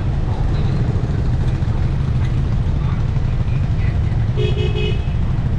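Steady rumble of busy city street traffic, engines running and passing. About four and a half seconds in, a vehicle horn gives a quick run of short beeps.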